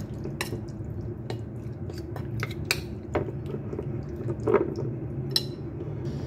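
A spoon stirring sliced beef in a wet marinade in a ceramic bowl: repeated clicks and clinks of the spoon against the bowl, with soft squelching of the meat.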